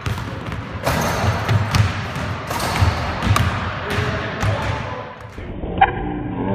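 Basketball bouncing and thudding on a hardwood gym floor, a string of separate impacts, with music and voices underneath.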